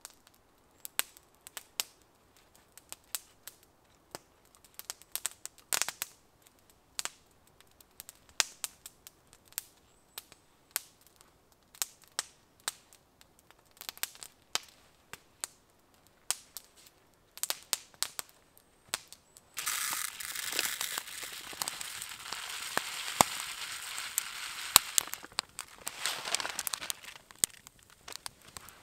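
Open wood campfire crackling with sharp, irregular pops and snaps. About twenty seconds in, a dense rustling hiss joins for about seven seconds.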